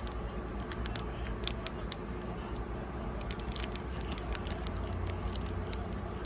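Crinkling and small clicks of a trading-card booster pack being torn open and its cards handled, as scattered irregular ticks over a steady low hum.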